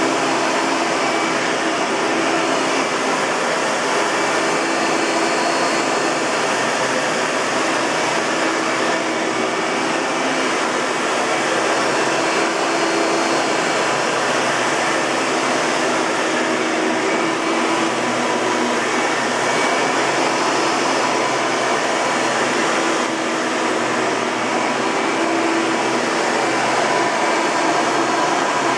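1997 Hoover TurboPower 4000 Elite upright vacuum cleaner running steadily: a dense rushing motor-and-airflow noise with a faint steady whine.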